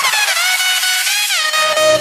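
Electronic dance music: synth lines sliding up and down in pitch with the bass and beat dropped out, the low end creeping back in near the end.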